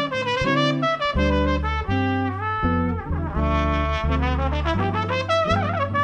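Background music: a brass melody with wavering held notes over a bass line that changes note about twice a second.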